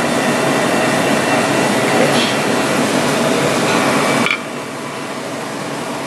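Steady restaurant background noise with faint voices in it. It drops abruptly to a quieter level about four seconds in.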